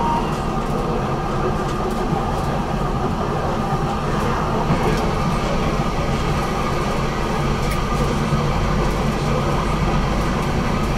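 BN GTL8 articulated tram running along its line: a steady running noise of wheels on rails and the drive, with a few faint clicks.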